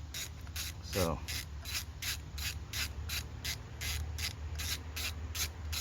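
Ratchet wrench clicking steadily, about four clicks a second, as it turns a magnetic spark plug socket to back out an old spark plug.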